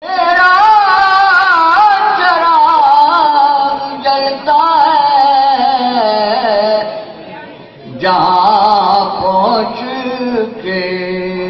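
Urdu poetry recited in a sung, melodic style by a single voice through loudspeakers, with long wavering held notes. There is a short break about eight seconds in.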